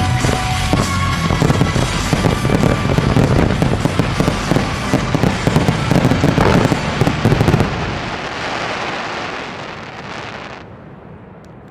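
Finale barrage of fireworks: many shells bursting and crackling in quick succession over rock music. The barrage is at its densest up to about eight seconds in, then dies away.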